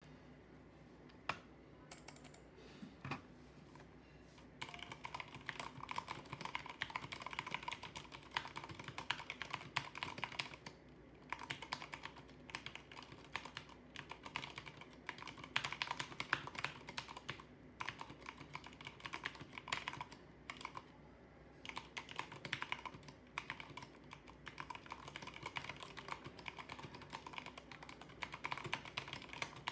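Typing on a Corsair K65 compact mechanical keyboard with Cherry MX Speed Silver linear switches. A few single keystrokes come first, then fast continuous typing from about four seconds in, with a few brief pauses.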